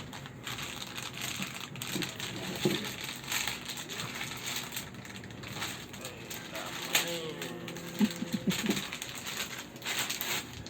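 Packaging crinkling and rustling as a pair of motorcycle rear shocks is unwrapped by hand, with a few light knocks.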